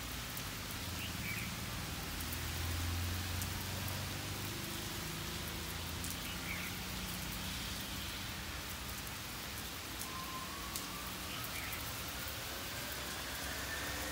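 Steady heavy rain pouring down, with a low rumble swelling in the first few seconds. Near the end a motorbike engine rises in pitch as it approaches.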